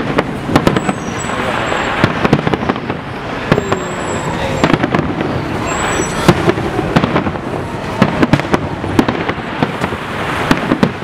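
Fireworks display: many sharp bangs in rapid succession over dense crackling, with a few short high whistles.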